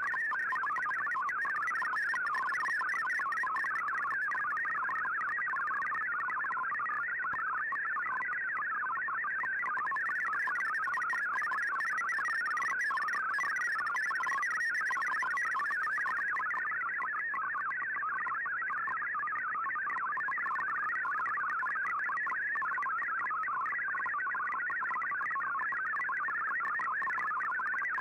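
Digital-mode data signal from a shortwave broadcast, heard through a communications receiver: a steady stream of rapidly shifting warbling tones packed between roughly 1 and 2 kHz, with faint band hiss.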